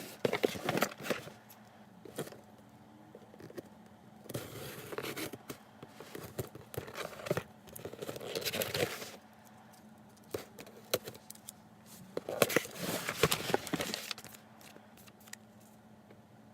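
A shipping package being opened by hand: cardboard and packing material scraping, tearing and rustling in about four bursts, with scattered clicks between them.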